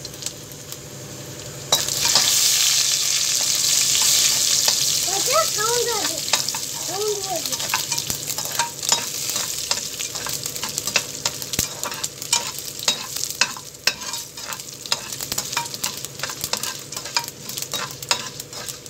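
Mustard seeds and urad dal sizzling in hot oil in an aluminium pressure cooker: the sizzle starts loudly and suddenly about two seconds in and slowly dies down. Then a metal slotted spatula stirs and scrapes the pan, with many sharp clicks over the fading sizzle.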